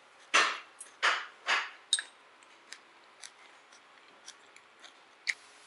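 Close-up crunchy chewing of minari pancake (minari-jeon): three loud crunches about half a second apart in the first two seconds, then faint mouth clicks and light taps.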